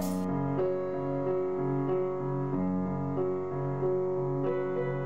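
Background keyboard music: a melody of separate notes over a lower, slower line.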